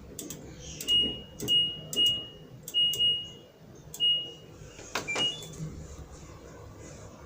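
Washing machine control panel beeping as its buttons are pressed: about six short high beeps, each with a click, then two quicker beeps at different pitches around five seconds in.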